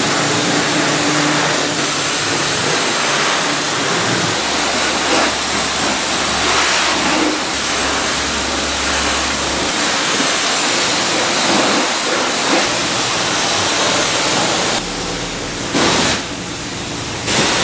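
High-pressure car wash wand spraying water onto a car's body, a loud steady hiss with a low pump hum under it. It eases off near the end.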